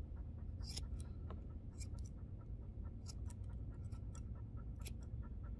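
Grooming scissors snipping the tufts of fur on top of a dog's paw: a dozen or so quiet, irregular snips over a low steady hum.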